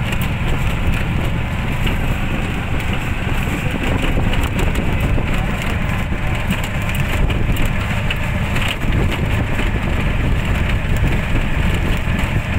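Wind buffeting the microphone: a loud, steady rumble with a rushing hiss over it.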